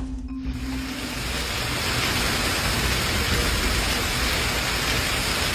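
Heavy storm precipitation pelting down: a dense, steady hiss of rain or hail strikes that starts about half a second in, over a low rumble.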